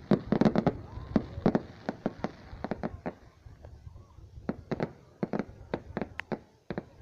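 Fireworks going off in quick, irregular bangs, thick for the first couple of seconds, then more spread out.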